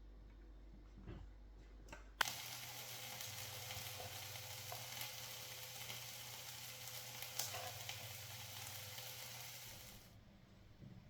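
A steady hiss that starts suddenly with a click about two seconds in and stops about a second before the end.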